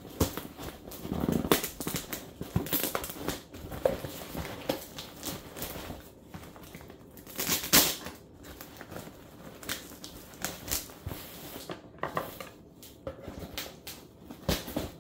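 Packing tape being picked at and torn off a cardboard shipping box, with irregular rustling, scraping and crinkling of the cardboard flaps and one louder rip about halfway through.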